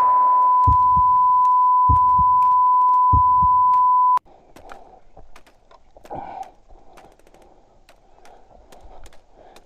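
A steady, high electronic beep held as one pure tone for about four seconds, then cut off suddenly, with a few low thuds under it. After it come only faint clicks and rustling.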